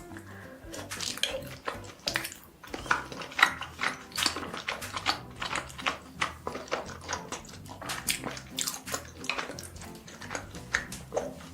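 Close-miked eating sounds: wet chewing and mouth smacking in quick, irregular clicks.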